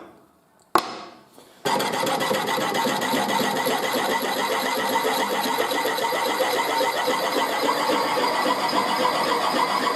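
A click, then about two seconds in a small motor-driven tool starts and runs steadily with a fast, even buzz.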